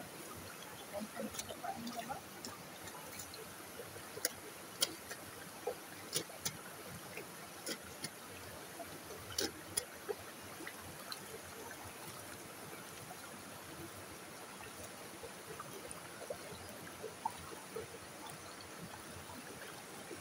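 Creek water running steadily, with irregular small splashes and drips as hands work in the shallow water at the rocks; the splashes come thickest in the first half.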